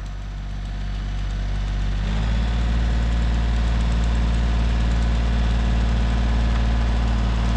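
A vehicle engine running steadily, stepping up to higher revs and load about two seconds in and holding there.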